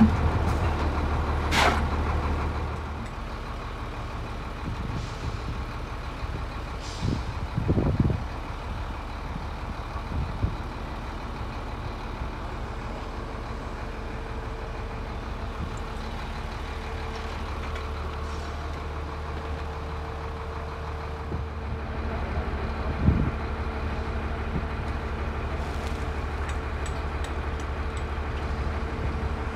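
Concrete pump's diesel engine running steadily, louder for the first few seconds and then lower. A few scattered knocks sound over it.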